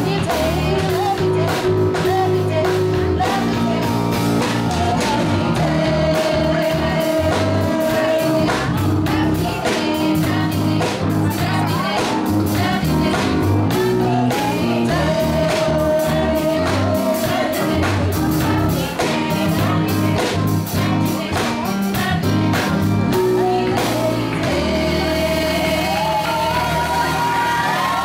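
A vocal group of young singers singing into microphones, backed by a drum kit and bass, with steady drum hits and held sung notes. Near the end the deep bass drops out.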